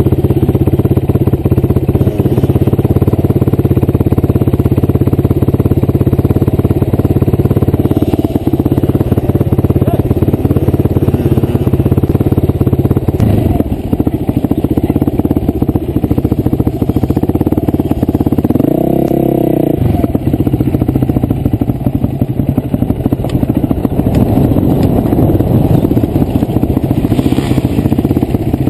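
Enduro dirt bike engine running as the bike is ridden across rough grassy ground, with a brief rise and fall in engine pitch a little past the middle.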